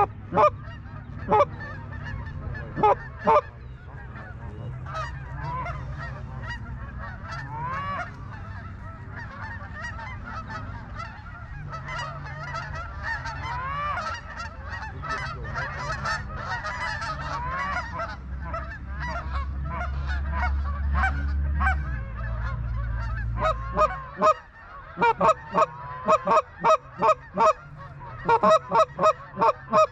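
Geese honking: many overlapping honks from a flock, then a quick run of loud, close honks over the last five seconds or so, with a low steady rumble underneath.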